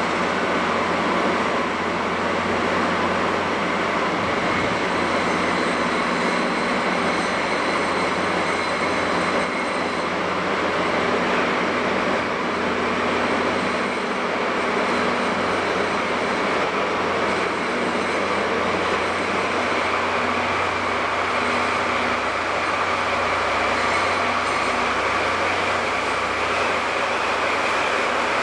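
DD51 diesel-hydraulic locomotive pulling a passenger train slowly out along the platform, its diesel engines running with a steady drone and a low hum underneath.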